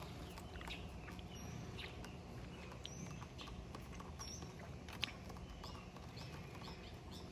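Small birds chirping in short, scattered calls over a steady low rumble, with a single sharp tap about five seconds in.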